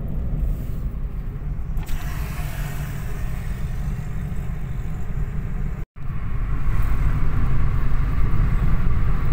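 Steady road and engine rumble of a Hyundai car cruising on a highway, heard from inside the cabin. The sound changes character about two seconds in, cuts out for an instant near six seconds, and runs a little louder toward the end.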